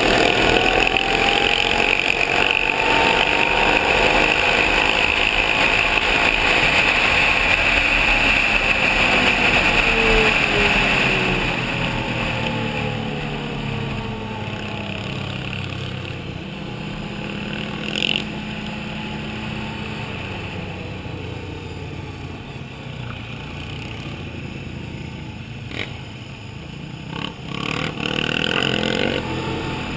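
Can-Am Outlander 800 quad's V-twin engine running on the road under a rush of wind noise, loud for about the first eleven seconds, then dropping to quieter running with the engine pitch sliding down and back up as the quad slows. A short sharp knock comes about halfway through.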